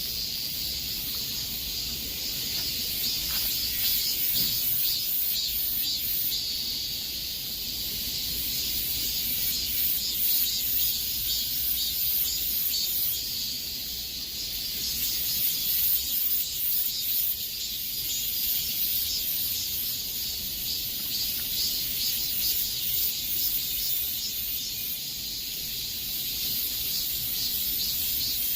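Chorus of cicadas: a dense, high-pitched buzz that swells and eases every few seconds.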